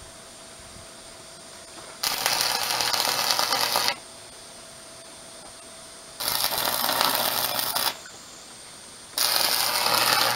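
Electric arc welding of steel rebar joints: three bursts of crackling, sputtering arc, each about two seconds long, with a low hum under each while the arc is lit.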